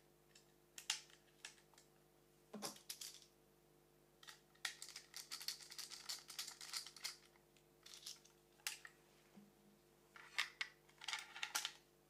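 Small silver screws being driven into a metal laptop hard-drive caddy with a precision screwdriver: faint scattered clicks and scratchy scraping, with a longer run of scraping about five seconds in and another near the end.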